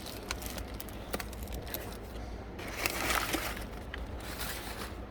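Light scattered clicks and ticks with a short rustle in the middle, the sound of transmission rebuild kit parts and their packaging being handled.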